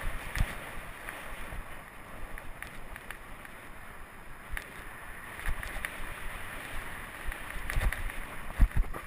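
Wind rushing over the microphone of a mountain-bike rider's camera, with tyre rumble on a dirt trail and the bike rattling and clicking over bumps. A few hard thumps near the end are the loudest sound.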